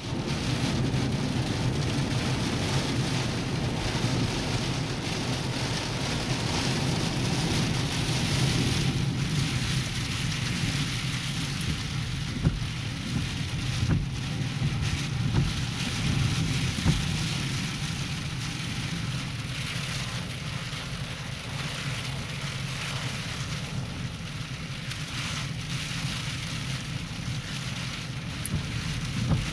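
Hurricane rain and gusting wind lashing a car, heard from inside the cabin as a steady rush with a low rumble underneath. A few sharp knocks come about halfway through.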